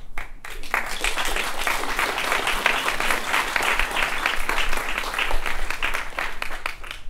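Audience applauding: a few claps at first, swelling within the first second into steady, dense clapping.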